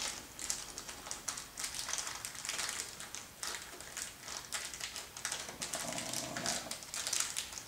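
Small hardware parts clicking and a small plastic parts bag rustling as they are handled by hand, in a run of light, irregular ticks and crinkles.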